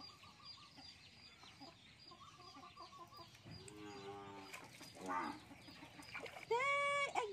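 Chickens clucking in short runs, ending in a louder, drawn-out call about six and a half seconds in. A faint high chirp repeats about three times a second throughout.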